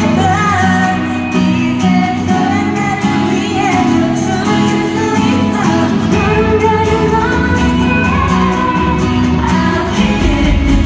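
K-pop song performed live at concert volume: female vocals over an amplified pop backing track with heavy bass, recorded from the audience in an arena.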